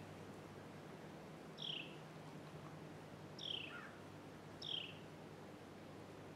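A songbird calling three times, faint: each call a short high note followed by a quick falling slur.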